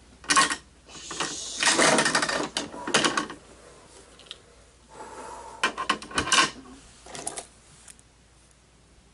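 Plastic toy garbage truck and small die-cast toy cars being handled, clattering and clicking in three spells of rattling, the middle one the longest.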